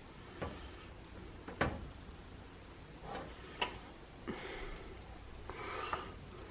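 Kitchen handling noise: about five sharp clicks and knocks spread out, with light rustling between them.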